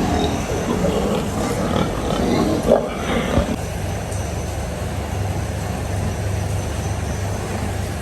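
Pigs grunting in a pen, with two louder grunts close together about three seconds in, over a steady low hum.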